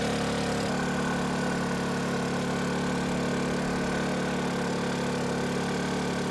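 A sailboat's auxiliary engine running steadily while the boat motors along, a constant engine hum.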